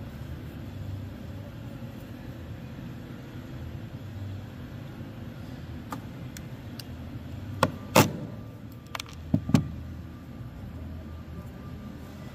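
Hands working the condenser fan motor's wire connectors, with four sharp clicks about two-thirds of the way through, the second the loudest, over a steady low rumble.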